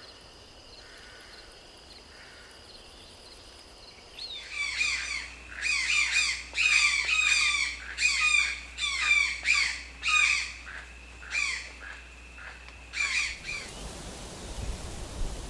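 A bird giving a long string of short, harsh calls, one to three a second. The calls start about four seconds in and stop near the end, over a faint steady high tone.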